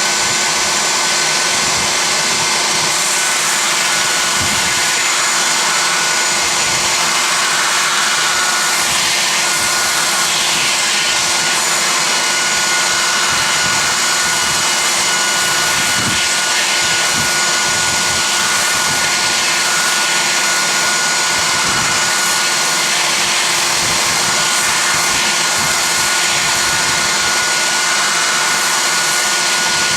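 Porter-Cable 371 compact belt sander running steadily with a 60-grit belt, sanding the end of a wooden mallet head, a continuous loud whine, with a dust-extraction vacuum running alongside.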